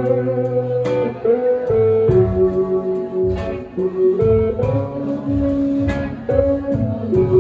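Live band playing an instrumental passage with no singing: electric guitar and keyboard holding chords over drums, with a cymbal or drum hit about once a second.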